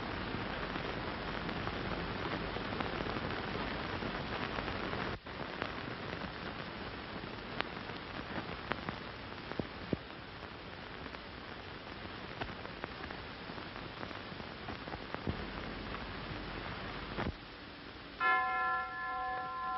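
A steady rushing hiss with a few faint clicks. Near the end it drops away and a bell chimes once, a clear ringing tone with several partials.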